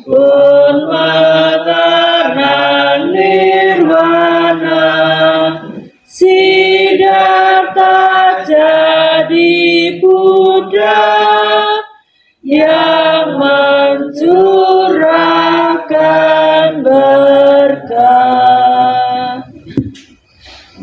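A congregation singing a Buddhist devotional song together, in phrases broken by short pauses about every six seconds; the singing stops near the end.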